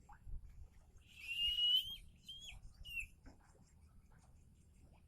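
Young eagle chick calling: one long, high-pitched, slightly wavering cry about a second in, then two short calls, with faint scratching and rustling around it.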